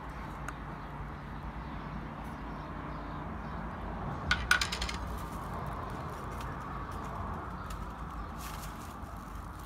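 A glass spice jar being handled and opened: a quick cluster of sharp clicks about halfway through, over a steady low background hum.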